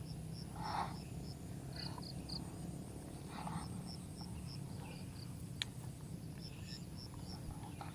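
Runs of short, evenly spaced high chirps from a small calling animal, over a steady low hum, with a single sharp click about five and a half seconds in.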